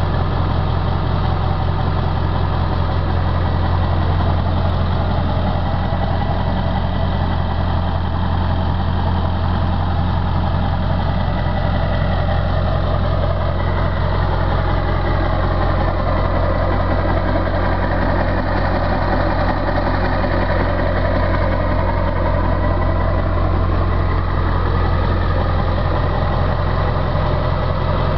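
Ford Super Duty pickup's engine idling steadily, heard from behind the truck.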